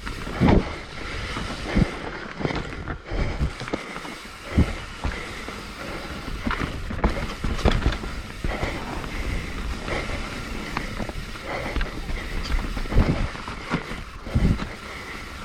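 Mountain bike riding down a rough dirt trail: a steady rush of tyre and riding noise with scattered knocks and rattles from the bike over roots and rocks.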